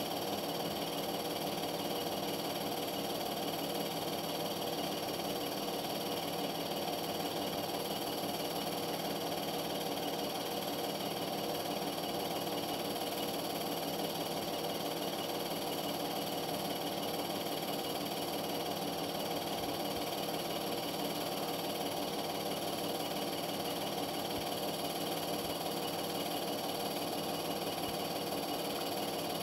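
Cine film projector running: a steady mechanical whir and rattle that holds at one pitch and level throughout.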